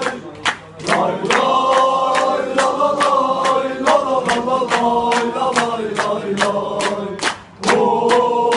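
A crowd of supporters singing a chant together in unison over a steady beat of sharp claps or drum hits. The singing drops out briefly about half a second in and again near the end, while the beat carries on.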